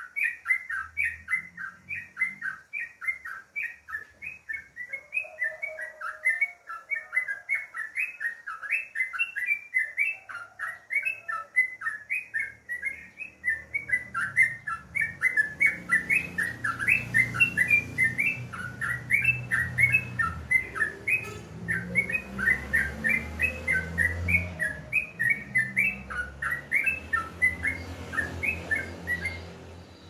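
Yellow-vented bulbul (trucukan) chattering without a break, a rapid run of short bubbly chirping notes. A low rumble comes in under the song about halfway through.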